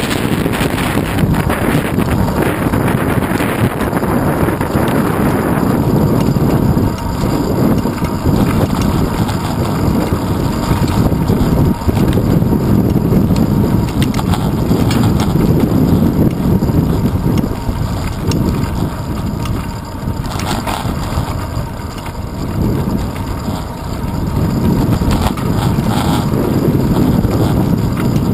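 Wind rumbling across a handlebar-mounted GoPro Hero 2's microphone on a moving bicycle, with road noise: a loud, steady low rumble that eases slightly about two-thirds of the way through.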